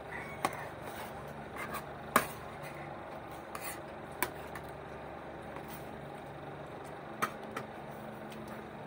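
Spoons and forks clinking and scraping against plates as children eat: a few sharp clinks, the loudest about two seconds in, over a steady low background hum.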